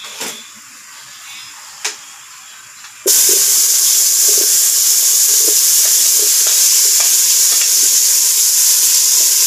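Food being sautéed in hot oil in an aluminium pot: after a quiet start with a single knock, a loud, steady sizzle starts suddenly about three seconds in as sliced tomatoes go into the pot, with a spoon stirring.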